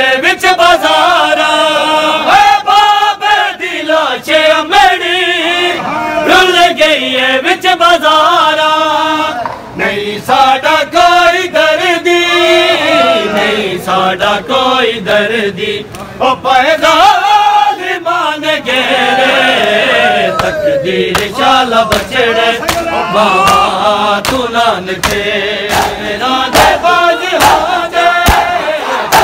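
A group of men chanting a Punjabi noha, a Shia mourning lament, in unison, over a steady rhythm of sharp slaps from bare-handed chest-beating (matam).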